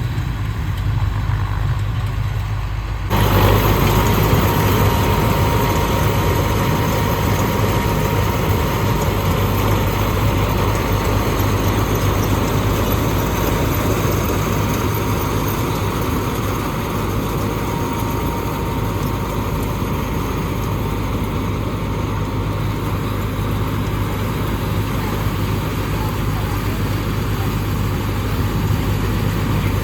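Tractor diesel engine running steadily while driving a Nippy45 mini combine harvester attachment. The sound gets suddenly louder and fuller about three seconds in, then holds steady.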